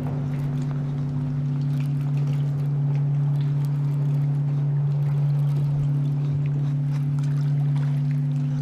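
Electric trolling motor on a bass boat running with a steady hum; the upper part of the hum dips briefly about halfway through.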